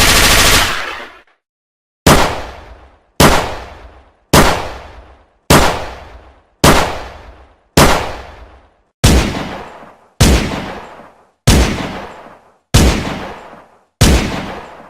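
Gunfire sound effect: a sustained automatic burst ends just under a second in, then eleven single shots follow at an even pace of a little under one a second, each with a short echoing tail.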